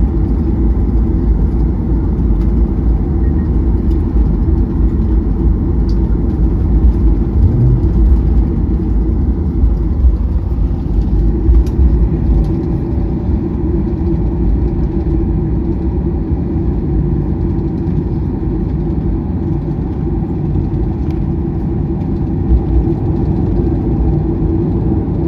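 Cabin noise of a Boeing 737-800 taxiing, heard from inside the cabin: a steady low rumble from the CFM56-7B engines at taxi power and the rolling aircraft, with little change throughout.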